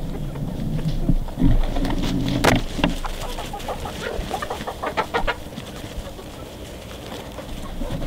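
A flock of hens clucking softly while foraging. A few low thumps and a sharp knock come in the first seconds, then a run of short clucks and clicks about four to five seconds in.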